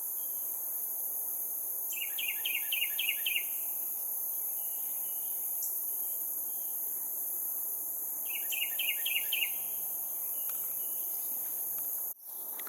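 Carolina wren singing: two bouts of one phrase repeated quickly about six times, the first about two seconds in and the second about six seconds later. A steady high-pitched chorus of crickets and other insects runs underneath.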